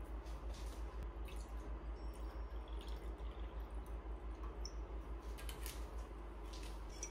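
Faint scattered ticks and crackles of an ice ball in a glass of freshly poured white wine, over a low pulsing hum that stops about six seconds in.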